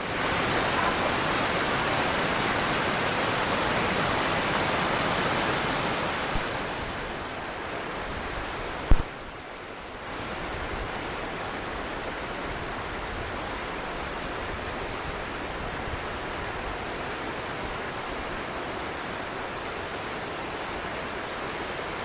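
Steady rush of the Todtnau waterfall, heard close up at first. About a third of the way in it fades, there is one brief knock, and then a quieter, steady rush of the falls and stream from farther off continues.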